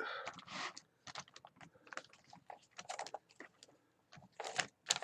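Irregular small plastic clicks and taps from handling the parts of a partly disassembled gaming keyboard, with a quick cluster of clicks near the end.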